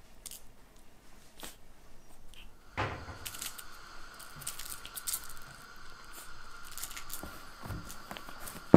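Soft rustling and scattered small clicks as a cat paws and bites at a string toy on a cloth-covered lap, with one sharper click near the end. A thin, steady high tone comes in about three seconds in.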